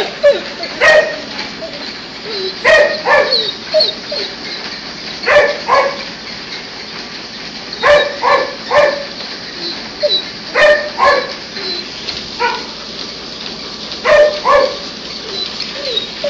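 Dog barking in quick groups of two or three barks, a group every two to three seconds, over a steady background noise.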